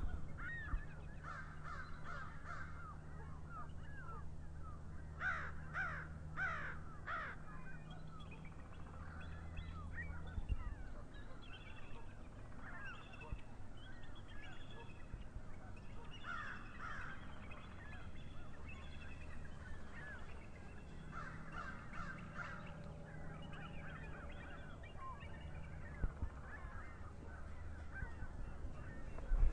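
Several birds calling at once, a run of short, overlapping chirping and cawing calls that comes and goes, over a low steady hum.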